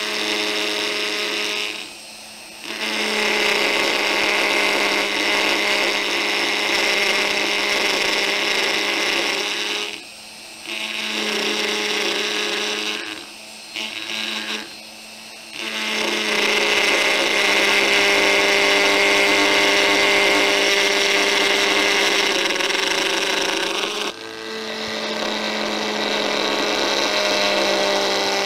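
Reciprocating carving handpiece on a flexible-shaft power carver buzzing steadily as its small chisel cuts grooves into wood, a handpiece that only works when pressed against the wood. The buzz breaks off briefly several times, about two, ten, thirteen and fifteen seconds in, leaving a quieter hum, then picks up again.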